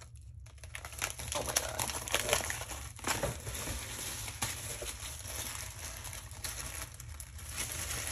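Plastic packaging crinkling and rustling as hands rummage through a parcel of small items. The crackling is irregular, with a few sharper crackles.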